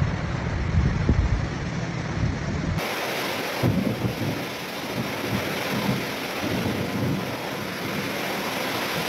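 Heavy rain pouring during a thunderstorm. For the first few seconds a deep rumble dominates. After an abrupt change about three seconds in, a steady, hissing downpour takes over with uneven low gusts.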